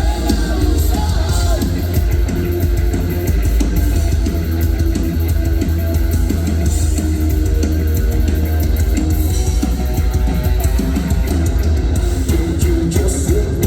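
Rock band playing live: electric guitar over a drum kit, with a heavy, steady low end.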